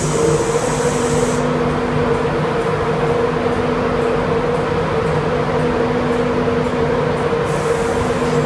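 Class 91 electric locomotive standing at the platform, humming steadily with several held tones. A high hiss sits over the hum for the first second or so and comes back near the end.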